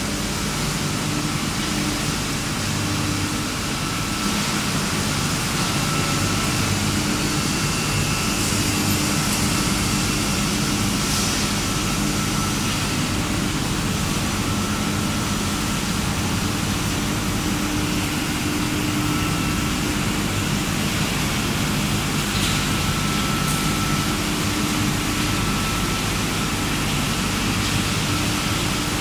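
Machinery of a wood pellet production line running together: rotary drum dryer, sawdust belt conveyor and dust-collector fans. It makes a steady low hum under a constant noise, a little louder from about four seconds in.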